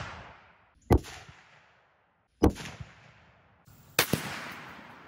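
Three 30-06 Springfield rifle shots about a second and a half apart, each a sharp crack followed by a rolling echo that fades away.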